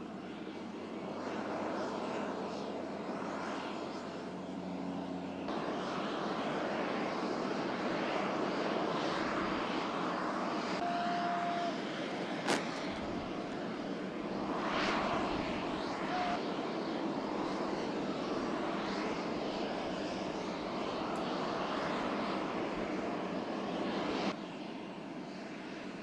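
Steady jet aircraft engine noise, with one sharp click about halfway through.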